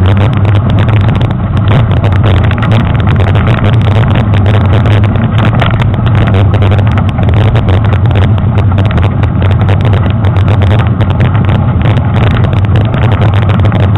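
Mountain bike rolling fast over a dirt trail, picked up by a handlebar-mounted action camera: a loud, steady rumble of wind and tyre noise with constant small rattles and knocks from the bike.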